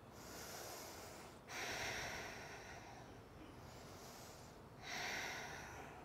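A person breathing slowly and audibly: three soft, airy breaths with short pauses between them, the middle one the longest.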